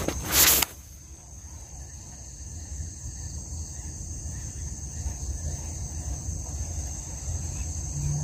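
Steady high-pitched insect drone, with wind rumbling on the microphone. A brief loud handling noise comes about half a second in.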